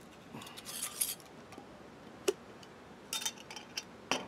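Glass jar of pipe tobacco being opened, its screw lid twisted off and handled: scattered clicks, clinks and rustles, with one sharp click a little after two seconds in and a cluster of clicks near the end.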